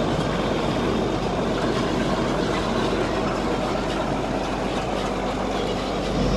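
Farm machinery running steadily with a smooth, even noise and no knocking: a freshly repaired baler turning over quietly behind the engine driving it.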